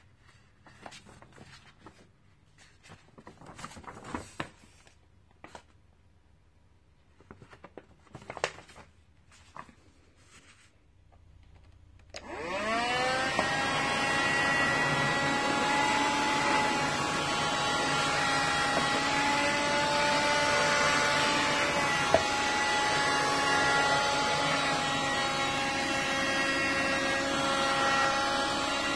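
Scattered handling clicks and knocks, then about 12 seconds in the Rowenta AC4461 Extenso Cyclonic handheld vacuum cleaner is switched on: its motor spins up and settles into a steady whining run.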